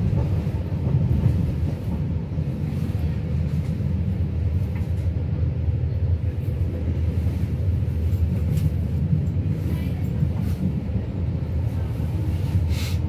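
Steady low rumble of a moving passenger train heard from inside the carriage: wheels running on the track, with a short hiss near the end.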